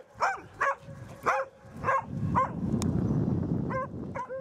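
Rough Collie barking during play: a string of short, high barks, about two a second, pausing in the middle and starting again near the end.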